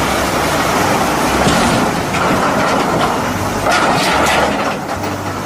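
Loud, steady rushing and rumbling noise like a running vehicle, which starts and cuts off abruptly.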